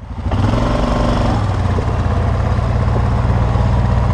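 Takeuchi TB235 mini excavator's diesel engine running steadily, fading in at the very start.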